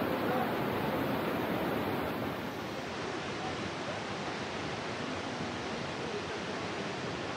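Steady rush of water from Kegon Falls, a tall plunge waterfall, heard from the viewing area. It drops a little in level about two and a half seconds in.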